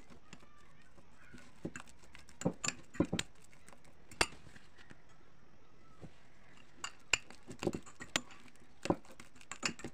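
Metal fork mashing banana in a ceramic bowl, the tines clinking and tapping against the bowl at irregular intervals, with a pause of about two seconds in the middle.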